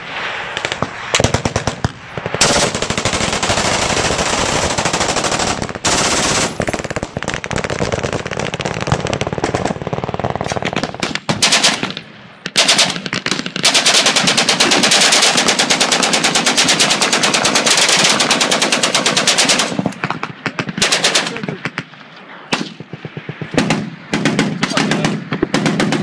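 Belt-fed machine guns firing long, rapid bursts, one after another, with shorter bursts near the end.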